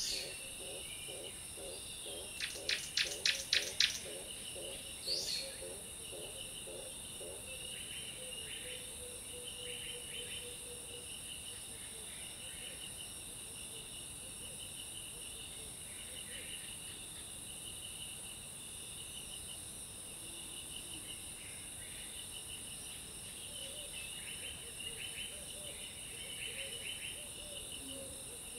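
Steady insect chorus, crickets buzzing and trilling. A low pulsing call repeats during the first few seconds, and about three seconds in comes a quick run of about eight sharp clicks, getting louder, then a single short chirp.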